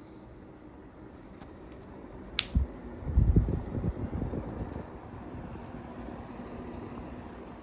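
Vornado EVAP-40 evaporative humidifier's fan running with a steady hiss. About two and a half seconds in come a sharp click and a thump, then about a second and a half of low knocking and rumble. Afterward the fan runs a little louder.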